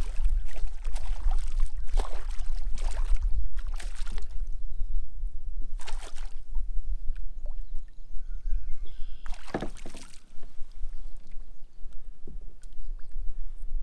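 A hooked bass splashing at the surface beside a kayak as it is played in and landed by hand. There are several separate splashes over the first few seconds, one more in the middle and a big one a little before the end, over a low steady rumble.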